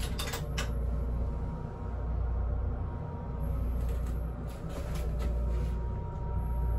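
Steady low rumble heard in a small tiled toilet room, with a few light clicks and knocks just after the start and again around the middle.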